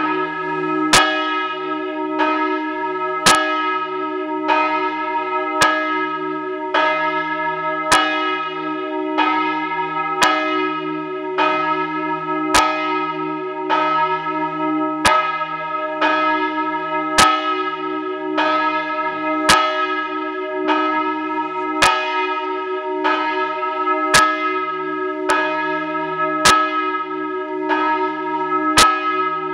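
The large 1922 De Poli bronze church bell, tuned to E-flat, swinging in full in the Friulian style, its clapper striking about once a second. The long ringing hum of each stroke runs on under the next.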